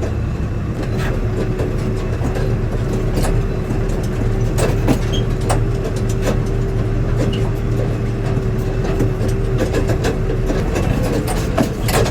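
Engine running steadily with a constant low drone and a thin steady whine, with scattered clicks and knocks over it. The whine fades out near the end.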